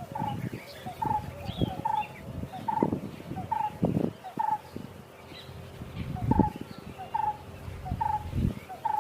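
A bird repeating a short, mid-pitched call about once every 0.8 seconds, pausing briefly midway, while other small birds chirp around it. Irregular low thumps run underneath.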